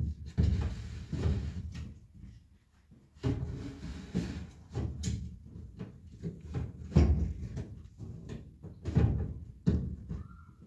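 Irregular knocks and clunks from the inside of an open upright refrigerator being handled, its plastic fittings bumped and moved.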